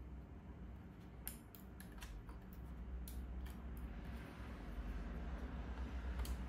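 Small sharp clicks and taps as laptop parts are handled and pressed back together during reassembly, in irregular clusters in the first half and once more near the end, over a steady low hum.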